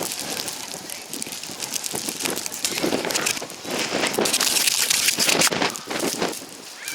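Strong blizzard wind buffeting the microphone, with blowing snow striking it as a dense run of small ticks. It swells loudest a little past halfway.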